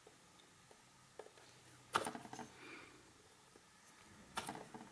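Light clicks and clatter from small tools and parts being handled on a wooden workbench during hand soldering: a faint click a little over a second in, then two short clusters of clicks, about two seconds in and near the end.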